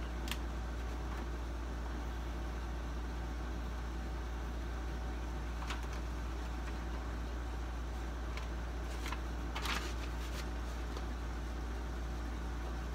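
Steady low machine hum with a few light clicks and taps, the loudest about ten seconds in.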